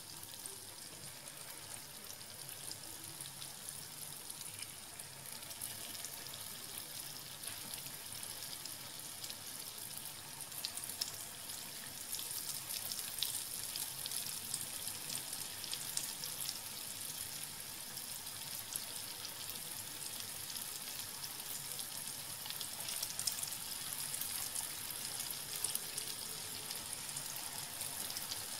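Unniyappam batter frying in hot coconut oil in a non-stick unniyappam pan: a steady sizzle with fine crackling. It grows louder about ten to twelve seconds in as more batter goes into the holes.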